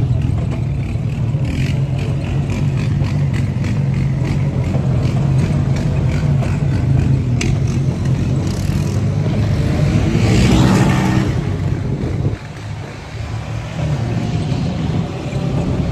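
ATV engine running under way, a steady low drone with clattering over it, swelling louder around ten seconds in and easing off about twelve seconds in.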